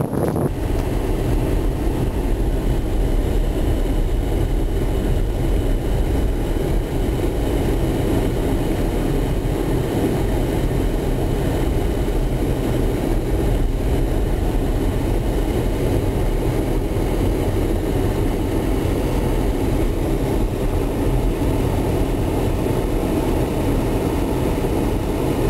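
A car in motion, heard from inside: steady engine and tyre-on-road noise, with a deep rumble underneath.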